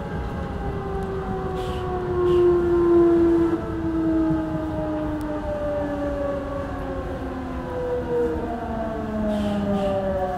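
Odakyu 1000 series electric train's inverter and traction motors whining from inside the passenger car: several tones fall steadily in pitch as the train slows for its next station. A low rumble of wheels on rail runs underneath.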